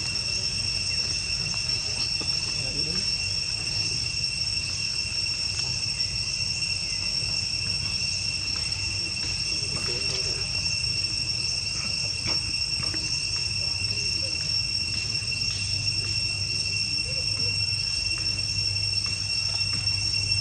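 Insects droning steadily: a constant, unbroken high-pitched whine at one pitch, with a low hum beneath.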